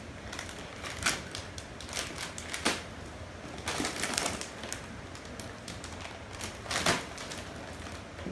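Packaging being handled during an unboxing: irregular crinkles, rustles and clicks, with a longer crackling rustle about four seconds in.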